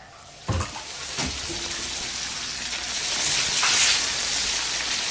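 Food dropped into a frying pan of hot oil, with a knock or two as it lands, then loud, steady sizzling and spitting that builds over the next few seconds.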